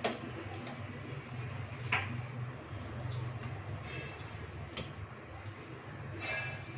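Light clicks and a brief ringing clink from hands and bangles against a steel plate as dough is pressed and shaped, over a steady low hum.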